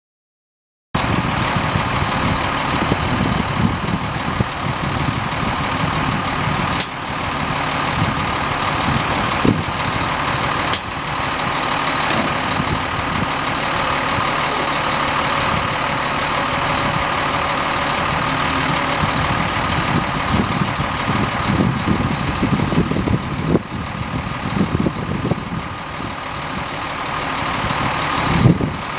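Cummins 10.8-litre straight-six diesel engine of a Ford L9000 mixer truck idling steadily, starting about a second in. A couple of sharp clicks come through, and the sound swells briefly near the end.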